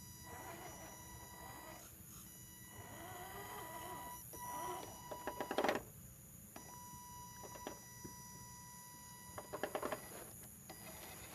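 Electric motor of an Axial SCX10 RC rock crawler whining as it crawls, the whine cutting in and out abruptly with the throttle. Two short bursts of rapid clicking rattles, about halfway through and near the end, are the loudest sounds.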